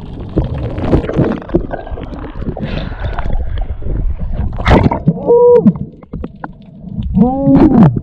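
Water sloshing and splashing against a snorkelling spearfisher's camera as he surfaces and dives. Then a sharp click and two short pitched sounds, each rising and falling, from his breathing through the snorkel.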